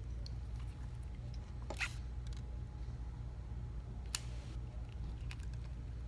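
Small clicks and taps of hand tools and phone parts being handled during a smartphone repair. There is a short crackle a little under two seconds in and one sharp click about four seconds in, over a steady low hum.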